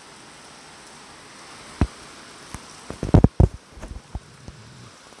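Steady rain falling, heard as an even hiss. Several sharp knocks sound close by: one a little under two seconds in, then a tight, louder cluster just past halfway, followed by a few fainter ones.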